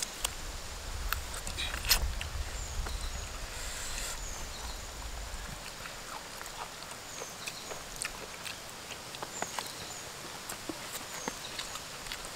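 Close-up mouth sounds of eating with the hands: chewing, lip smacks and sucking at chicken bones for the marrow, with small scattered clicks from fingers working through rice and meat.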